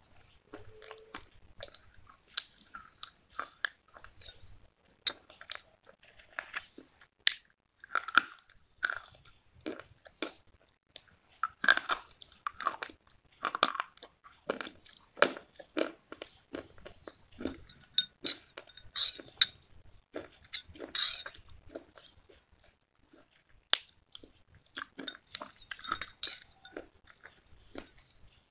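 White slate pencils being bitten and chewed: sharp, irregular crunches several times a second, with quieter grinding chews between.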